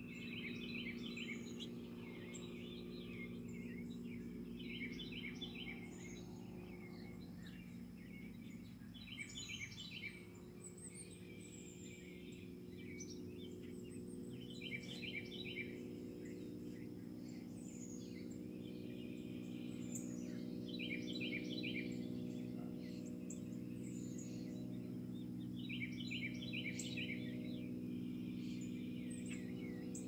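Wild songbirds singing: short phrases of rapid repeated notes, about one every five or six seconds, with a few higher chirps between. A steady low hum runs underneath.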